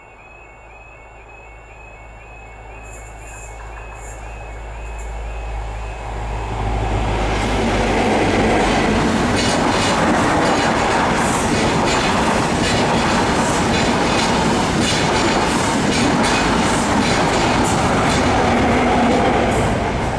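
Level crossing warning alarm repeating while an LNER High Speed Train, with class 43 power cars and Mark 3 coaches, approaches and passes at speed. The rumble builds over about eight seconds into a loud, steady rush of wheels on rail with rapid clicking, which covers the alarm and stays loud to the end.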